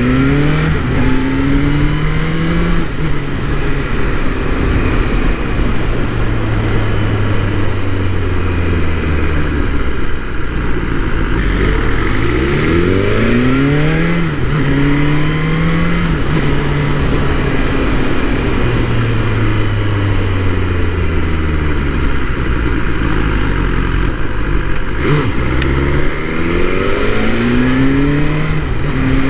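2022 BMW S1000R's inline-four engine pulling through the gears: the pitch climbs and drops back at each upshift in quick runs, with long falling stretches as the bike rolls off between them.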